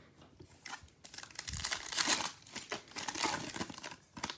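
Foil trading-card pack wrapper being torn open and crinkled by hand, a dense crackling that starts about a second in.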